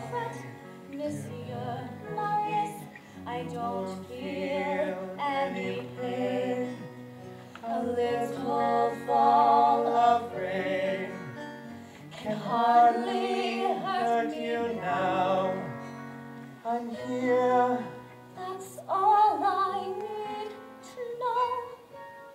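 A teenage girl singing a slow stage-musical ballad with vibrato over soft instrumental accompaniment, in long phrases that swell and fade.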